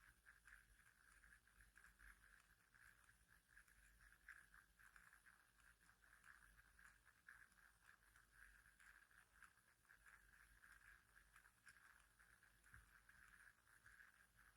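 Near silence: faint, steady room tone, a soft hiss over a low hum.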